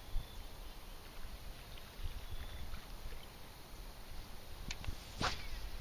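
Wind rumbling on the microphone, with a few faint high chirps. Near the end come a couple of light clicks and a short swish.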